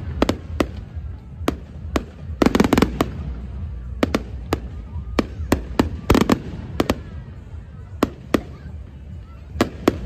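Fireworks display: aerial shells bursting in a steady run of sharp bangs, with quick clusters of several bangs about two and a half seconds in and again around six seconds, over a steady low rumble.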